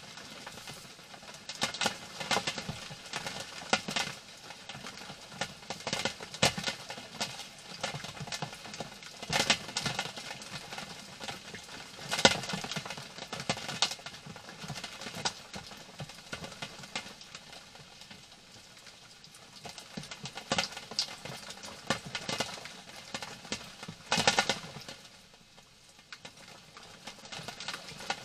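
European hedgehog moving about in dry straw bedding: irregular rustling and crackling of the straw, in louder clusters with quieter stretches between.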